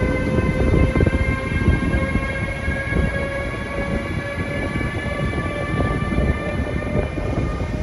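Siemens Vectron electric locomotive accelerating away: a whine in several tones rises slowly in pitch over a low rumble from the running gear.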